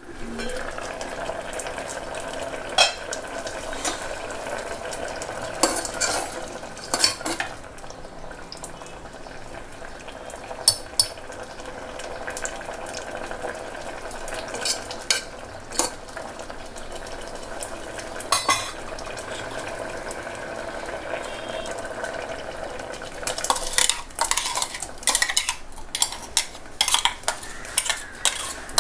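A steel spoon stirring a simmering curry in a pressure cooker pot, clinking now and then against the metal, over a steady hiss. Near the end, quick clinks come as the spoon scrapes ground coconut paste out of a steel mixer jar into the pot.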